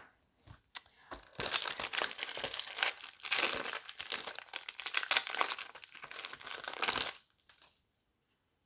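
A trading card booster pack's wrapper being torn open and crinkled by hand: dense crinkling from about a second and a half in, stopping abruptly about seven seconds in.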